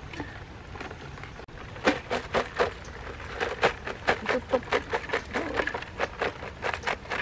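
Live crabs clattering and scrabbling in a woven bamboo basket as it is shaken over a clay pot: a quick irregular run of sharp clicks and rattles, starting about two seconds in.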